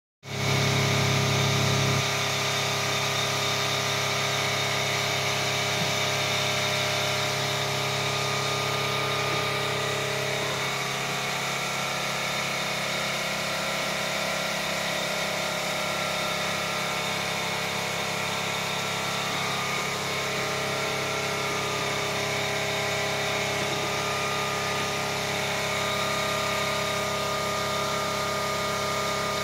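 Metal lathe running while it cuts a four-start thread into a 220 mm friction press spindle under coolant spray. It makes a steady mechanical hum with several held tones, and the lowest hum drops away about two seconds in.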